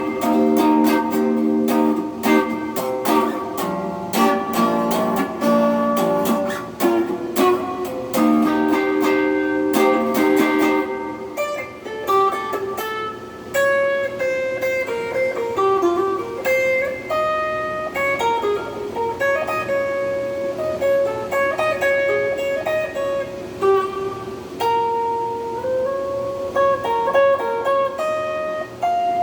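Electric guitar played through an amp: strummed and picked chords for about the first ten seconds, then a single-note melody line.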